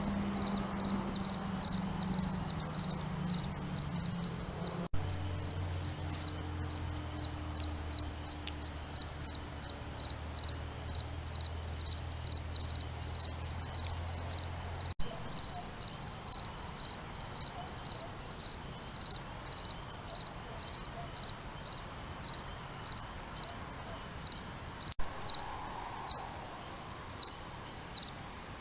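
Insects chirping in a steady high-pitched rhythm, about three chirps a second. In the middle stretch a louder, closer chirp repeats about twice a second for some ten seconds, then stops.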